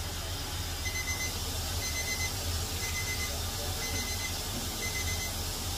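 An electronic beeper sounding short high beeps about once a second, five times starting about a second in, over a steady low hum.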